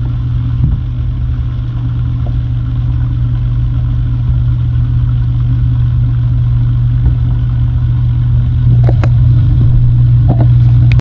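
Electric kitchen blending appliance running steadily at full speed, whipping garlic, lemon juice and slowly added oil into a thick emulsified garlic sauce. It grows slightly louder towards the end, with a couple of light knocks, then stops abruptly.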